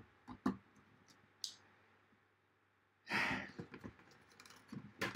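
A breathy sigh about three seconds in, among a few light clicks and taps of a plastic toy wrestling ring being handled.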